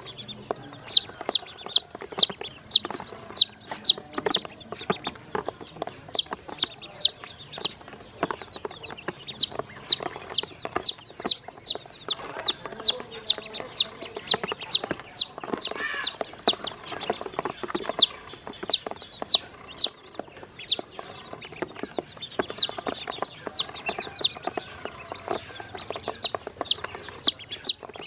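Chicks and ducklings peeping: high, falling peeps about three a second, in runs with short breaks. Under them is a patter of small taps as they peck feed from a plastic basin.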